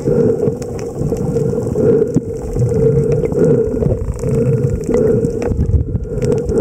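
Underwater water noise: a steady low rush of moving water on the camera's microphone, with a few faint sharp clicks scattered through it.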